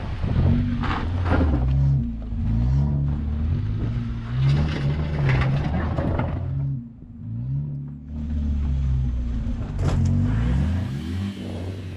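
Small petrol car engines labouring up a steep dirt climb, revving up and falling back again and again as the cars struggle for grip. Bursts of noise come from the tyres churning loose dirt.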